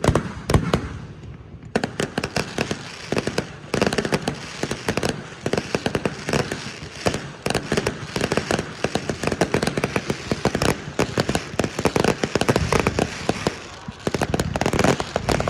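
Fireworks bursting at close range: after a brief lull, a dense, rapid crackle of many small bangs runs almost without a break, easing a little just before the end.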